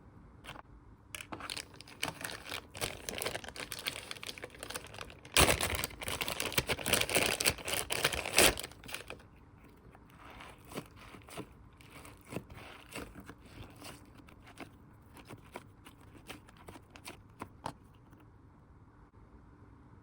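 Plastic packaging crinkling as it is handled and opened, busiest and loudest in the middle, then thinning out to scattered crackles before stopping near the end.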